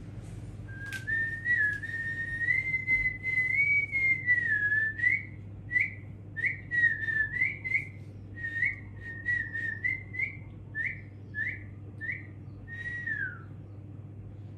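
A person whistling: a long wavering note, then a string of short rising chirps about two a second, the last one gliding down.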